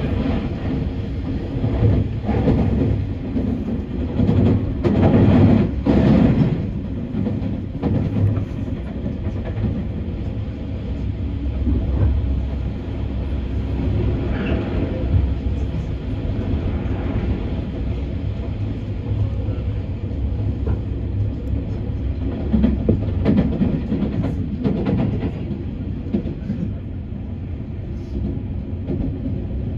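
Commuter train on the Tobu Skytree Line running along the track, heard from inside the car: a steady low rumble with repeated clacks of the wheels, louder in patches about five seconds in and again near the end.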